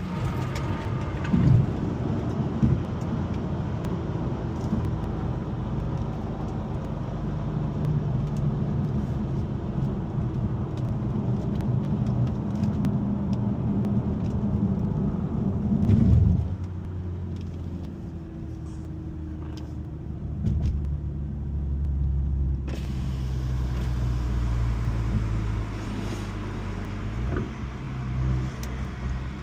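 Car engine and road noise while driving: a steady low engine drone that swells briefly about sixteen seconds in, then carries on at a lower, quieter pitch.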